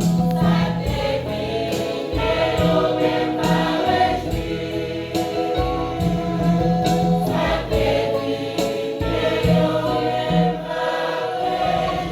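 Church choir singing with instrumental accompaniment: a low sustained bass line under the voices and repeated percussive strikes.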